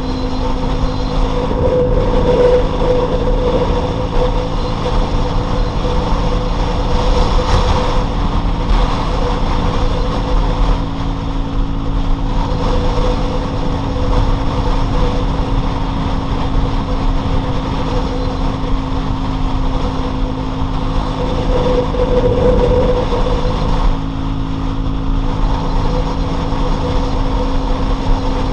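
Loncin LX250-12C motorcycle's single-cylinder engine running at a steady, unchanging speed while riding, over a low rumble of wind and road noise.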